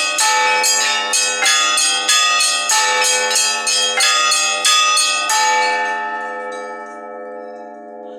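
Orthodox church bells of a monastery belfry rung by hand, several bells struck in a quick steady pattern of about two strikes a second over a sustained hum of the bigger bells. A little past halfway the strikes stop and the bells ring on, fading away.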